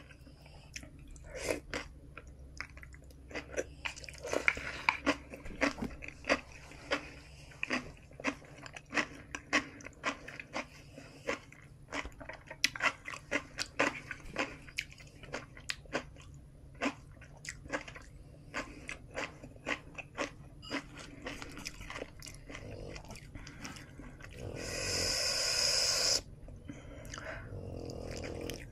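Close-up mouth sounds of someone eating kimchi noodles and dumplings: chewing and biting, with many short wet clicks and smacks. Near the end comes one louder hissing sound lasting under two seconds.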